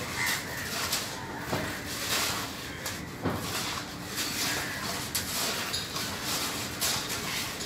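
Hand tools scraping and dragging through wet cement concrete as it is spread and levelled, in irregular strokes.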